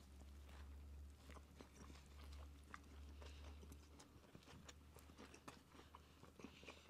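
Faint chewing of soft grilled-chicken quesadilla tacos, small scattered clicks and mouth sounds, over a low steady hum.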